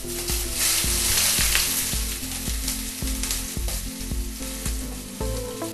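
Sliced onions and green chillies sizzling as they are tipped into hot coconut oil in an aluminium kadai, the sizzle strongest over the first couple of seconds and then easing to a steadier fry.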